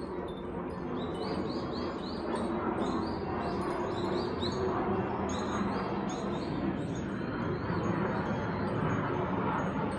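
A small bird calling in a quick series of short rising chirps, about three a second, starting about a second in and easing off near the end, over a steady low background rumble.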